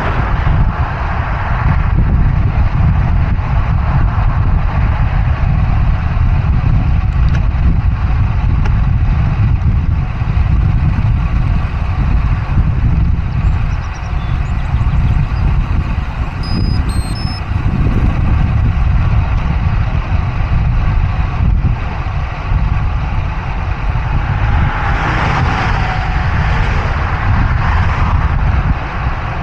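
Motor traffic passing on a busy highway, heard from a moving bicycle, with steady wind rumble on the camera's microphone; one vehicle passes louder near the end.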